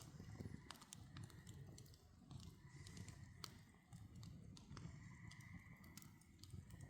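Faint campfire crackling: scattered sharp snaps and pops from the burning wood over a low rumble.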